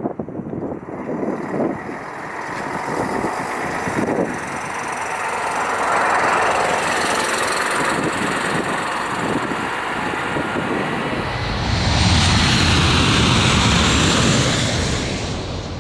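Jet airliner passing low overhead: a roar that builds over several seconds, gets loudest with a deep rumble about twelve seconds in, then fades near the end.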